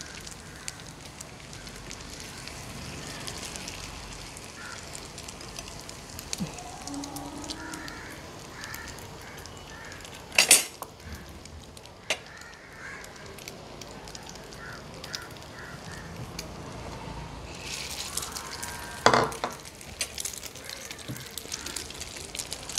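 Egg-dipped stuffed buns sizzling steadily as they fry in hot oil in a glass pan. Steel tongs clatter sharply against the pan twice, about ten seconds in and again near the end, with a lighter click between.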